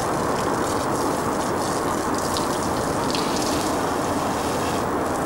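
Garden hose running, its jet of water spattering and splashing on the grass over a steady rushing hiss.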